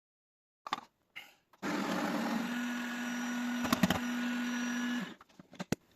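KitchenAid coffee grinder's motor running for about three seconds, grinding out the last beans left inside until it is empty, with a steady hum over a grinding hiss, then stopping abruptly. A few short clicks come before it starts and after it stops.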